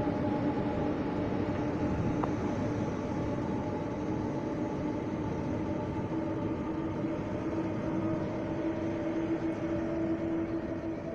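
Portuguese CP suburban electric multiple unit moving slowly along the far platform track: a steady electric hum over a low rumble of wheels on rail.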